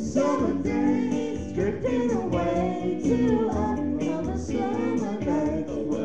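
Karaoke duet: a man and a woman singing into microphones over a recorded backing track.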